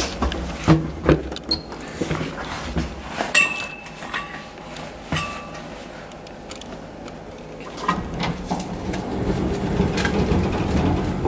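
Hotel lift ride: a few knocks and footsteps, two short electronic beeps of the lift chime about two seconds apart, and the lift's sliding doors.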